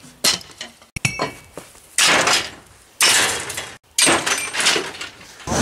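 Scrap metal being shifted and dropped in and beside a pickup bed: a series of clanks and knocks, with three louder metal crashes about a second apart in the middle, each fading quickly.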